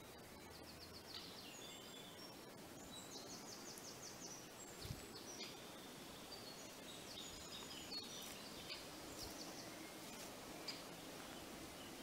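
Great spotted woodpecker chicks calling from the nest hole in fast, repeated trains of high chirps, faint against woodland ambience. There is a soft low thump about five seconds in.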